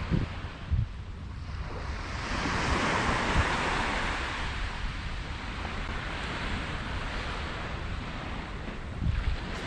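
Surf washing onto a sandy beach: a wave swells and breaks about two seconds in, then its wash slowly fades. Wind buffets the microphone with a few low thumps.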